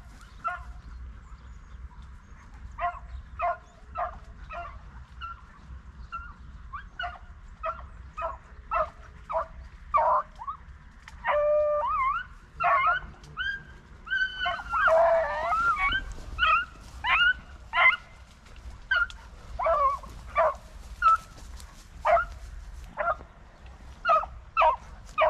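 Beagle pack baying on a trail: a string of short, high yelping barks, with several dogs giving voice together about halfway through. This is the voice of hounds working a rabbit's scent.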